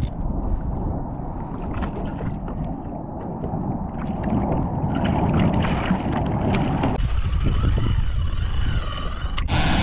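Wind buffeting the microphone and water against a kayak hull while a hooked fish pulls on a trolling rod set in the holder. About seven seconds in, the sound cuts to a fishing reel's drag whining as a fish strips line, its pitch wavering up and down.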